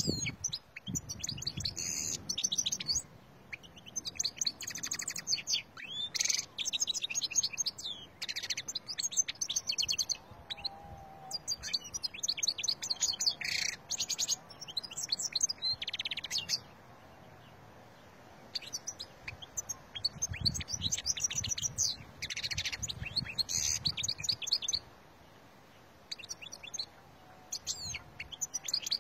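Wild Algerian goldfinch (European goldfinch) singing: fast, twittering, trilling phrases run one into another, with a pause of a couple of seconds twice in the second half.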